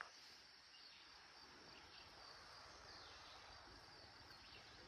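Near silence: faint, steady outdoor background noise.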